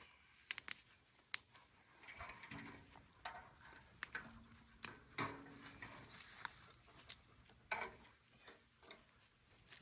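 Scattered light clicks and taps with faint rustling: griddle parts and packaging being handled during unboxing.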